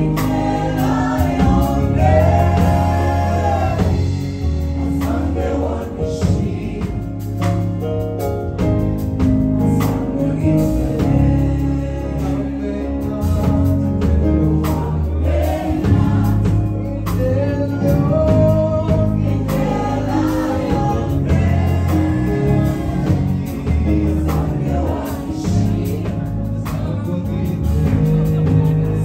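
Gospel song: voices singing together over a band with a steady bass line and a beat.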